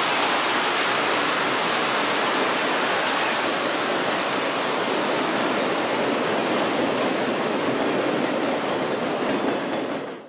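Steam locomotive venting steam: a steady, even rushing hiss with no exhaust beat, which stops suddenly near the end.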